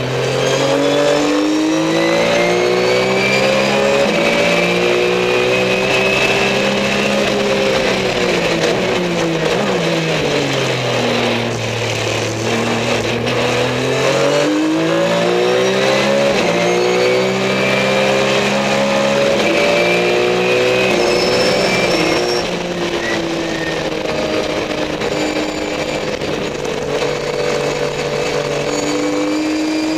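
Race car engine heard from inside the cockpit on a fast lap, pulling hard at high revs, dropping to low revs about ten seconds in as it slows for a corner, then climbing back up. About 22 seconds in the engine note falls and eases off.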